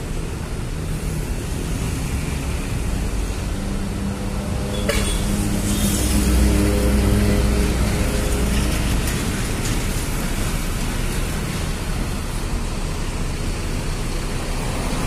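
Mercedes-Benz OH-1626 coach's rear-mounted six-cylinder turbodiesel running as the bus pulls away and drives slowly past. The engine note swells for a few seconds near the middle, and there is a short sharp hiss about five seconds in.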